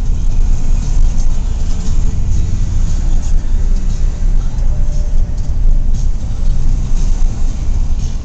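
Steady low rumble of a moving vehicle heard from inside it: engine, tyre and wind noise, with faint rattles.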